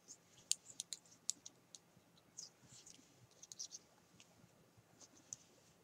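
Faint, irregular clicks and light scratching of metal knitting needles working stitches in wool yarn.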